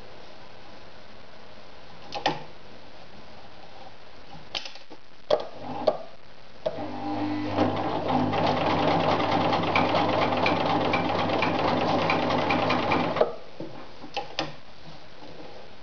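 Riccar 1300 sewing machine stitching through a thick piece of material: it starts up, gets up to speed within about a second and sews at a fast, even rhythm for about six seconds, then stops. A few sharp clicks come before it starts and just after it stops.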